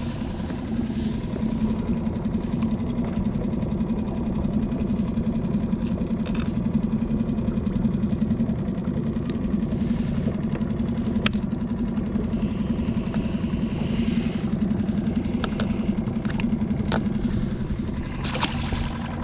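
A small engine running steadily at low speed, with a few sharp clicks scattered through it.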